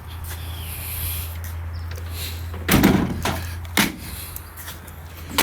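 A lid or door on a pickup truck being shut: a heavy thud about three seconds in, a click a second later, and a sharp knock near the end, over a steady low hum.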